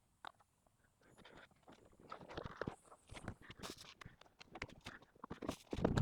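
Irregular clicks, knocks and clunks of hand work on metal parts and tools, a few at first, then quickly busier about a second in and louder toward the end.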